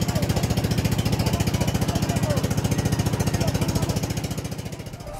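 Motorboat engine running steadily with a fast, even chugging, fading away near the end.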